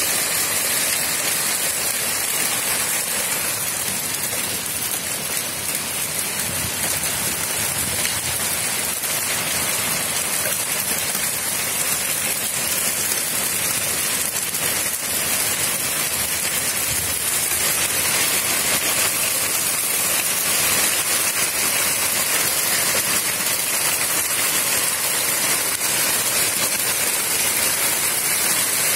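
Heavy hail falling, a steady dense hiss of hailstones hitting the ground and fences.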